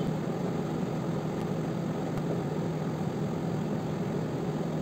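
A steady low machine hum with hiss, unchanging throughout.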